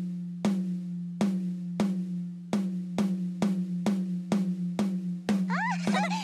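Drum struck with a drumstick in a steady, even beat of about two strokes a second, over a steady low hum. Near the end, squeaky high voices slide up and down.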